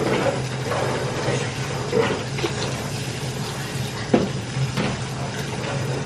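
Kitchen knife slicing through a cooked beef roast on a paper-towel-covered wooden cutting board, with a couple of short knocks, about two and four seconds in, as the blade meets the board. A steady low mechanical hum runs underneath.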